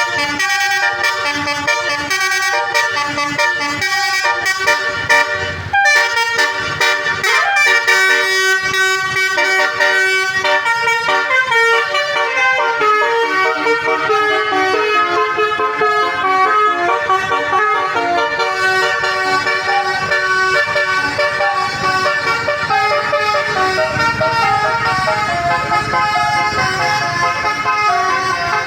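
Bus telolet horn, a multi-tone 'Basuri' horn set, playing a quick tune of stepped, held horn notes with no break. A low rumble joins underneath in the last few seconds.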